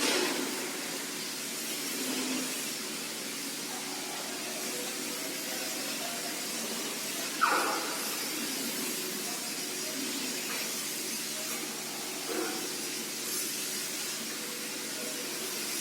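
CNC lathe running through a machining job: a steady hiss with faint tones under it, and a sharp click about halfway through.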